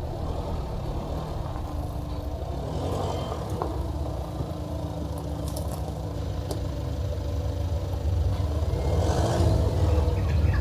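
A motor vehicle's engine running with a steady low rumble, growing louder near the end, with some light clatter.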